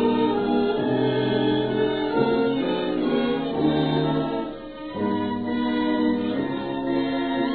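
Orchestral music with held chords that change every second or so, thin and muffled like an old recording.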